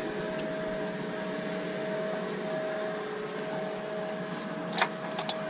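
Steady mechanical hum with a constant pitched whine, and a sharp click near the end followed by a couple of lighter ticks.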